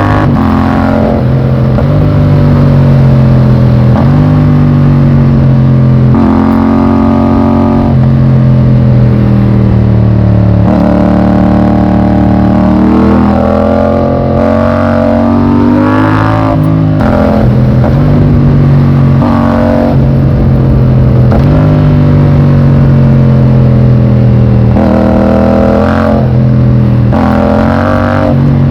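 Yamaha MT-07's 689 cc parallel-twin engine under way, its pitch climbing and dropping again and again as the rider opens the throttle, shifts and rolls off.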